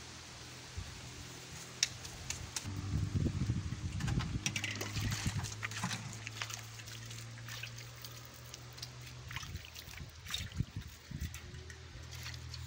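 Water sloshing and trickling in a metal basin as it is handled, with scattered clicks and scrapes. It is busiest a few seconds in.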